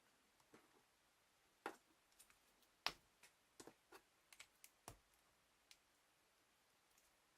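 Irregular small plastic clicks and taps from handling a Marvel Legends 6-inch Ant-Man action figure, about a dozen in a few seconds, with the sharpest one about three seconds in.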